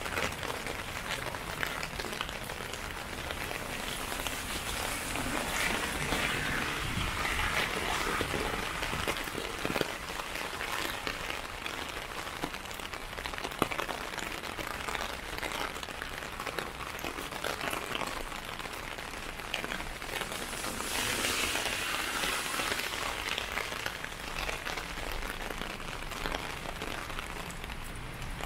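Rain pattering on a clear umbrella overhead: a dense, steady patter of drops with a hiss. The hiss swells louder for a few seconds about a quarter of the way in and again about three quarters through.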